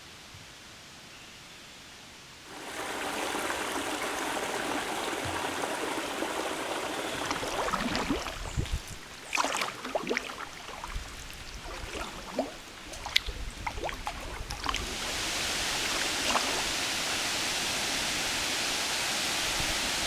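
River water running, starting suddenly a couple of seconds in, with a stretch of irregular splashes and drips in the middle; the rush of water grows louder and fuller near the end.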